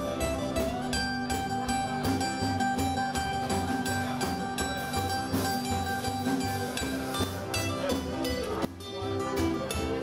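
Small live band playing: strummed acoustic guitar, a second guitar and drums on a steady beat. A long note is held for about seven seconds, and the sound dips briefly near the end.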